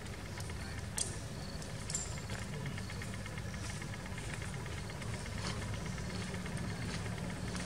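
Steady low engine rumble, like a motor idling, with a few faint sharp ticks and short high chirps over it.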